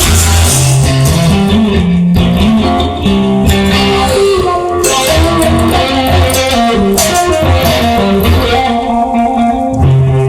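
Instrumental passage of a song: electric guitar playing melodic lines over a moving bass line, with no singing.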